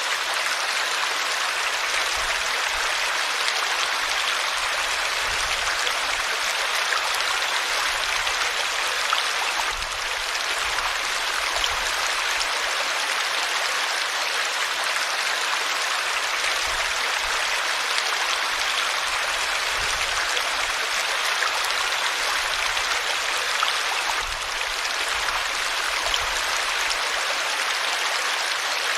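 River water flowing steadily over rocks, an even rushing sound.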